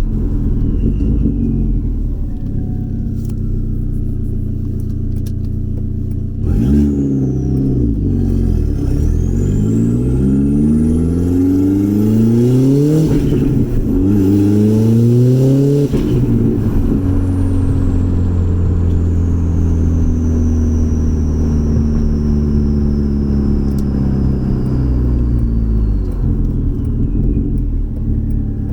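Audi B5 A4 1.8T's turbocharged four-cylinder engine under hard acceleration on the street. Revs climb through two quick pulls in the middle, each ending with a drop at the gear change, and a high whine rises with the first pull. Before and after the pulls it runs steadily at cruise.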